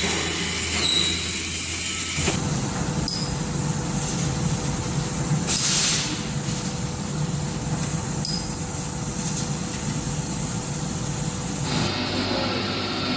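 Steady workshop machinery noise from welding equipment, a hum under an even hiss. It changes character about two seconds in and again near the end, with a short loud hiss about six seconds in.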